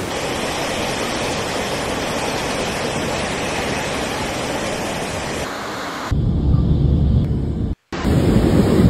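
A muddy mountain river in spate, the Vispa in flood, rushing steadily as a torrent. About six seconds in it cuts to a louder, deeper rush of water, with a brief dropout near eight seconds.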